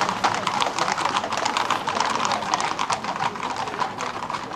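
Many hooves clattering on a paved street as a close pack of Camargue horses, with bulls among them, moves along: a rapid, irregular patter of hoof strikes.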